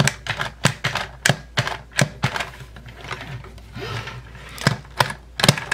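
Repeated sharp plastic clicks from the DX Cube Whale toy's white front push-button being pressed over and over, working the mechanism that makes the blue water-spout piece bob up and down. About two to three clicks a second, with a short pause a little past the middle.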